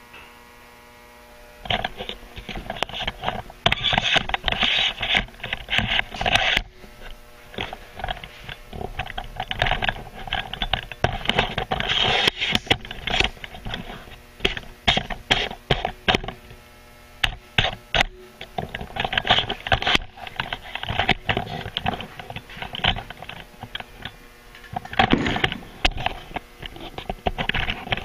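Clatter of handling and moving about: irregular knocks, scrapes and rustles, dense from about two seconds in, over a steady electrical hum.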